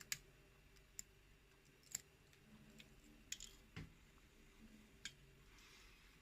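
Faint, scattered small clicks, about one a second, over near silence: the small metal pins and springs of a BKS euro cylinder lock being handled as it is taken apart.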